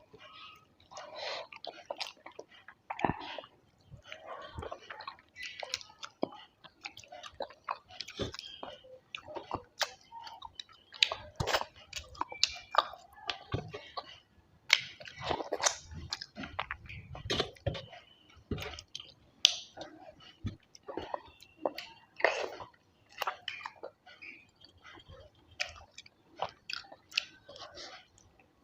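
Close-miked chewing and wet mouth smacks of a person eating a rice-and-curry meal: irregular smacks and clicks, mouthful after mouthful.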